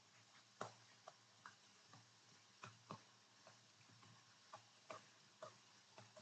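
Faint, irregular light clicks of a stylus tip tapping a writing surface as words are handwritten, about a dozen over six seconds, over faint room hum.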